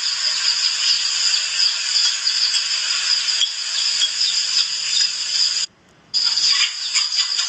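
A steady high-pitched hiss that cuts out for about half a second near the end.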